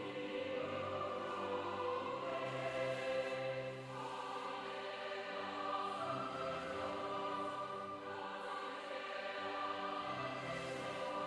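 Mixed choir of men and women singing a slow piece in long held chords that change every second or two.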